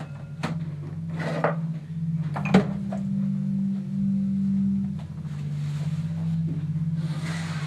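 Dishes and cutlery knocking and clattering in a stainless steel kitchen sink during washing up, with a sharp clink about two and a half seconds in. A low, steady musical drone sounds underneath throughout.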